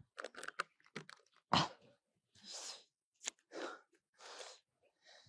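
A man sobbing quietly: short sniffs and catches of breath, roughly one a second.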